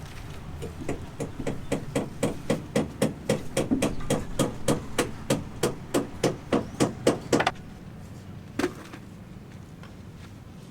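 A hammer striking repeatedly in a quick, even rhythm, about three to four blows a second for several seconds, stopping abruptly, then one more single blow.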